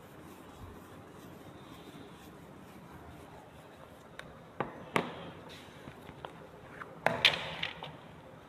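Handheld whiteboard eraser rubbing across the board, a faint rubbing hiss, then a few sharp knocks about halfway through and a short cluster of clatter and rustle near the end, the loudest sounds here.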